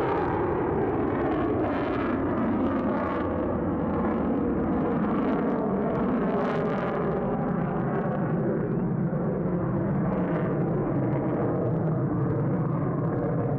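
Lockheed Martin F-22 Raptor's twin F119 turbofan engines heard from the ground as the jet manoeuvres overhead. It is a steady rushing jet noise with a faint, slowly shifting phasing tone.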